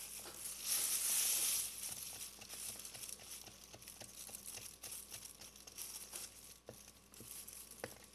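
Sticky glue-and-activator slime mixture being stirred with a stick: a rustle in the first couple of seconds, then a run of small wet clicks, several a second.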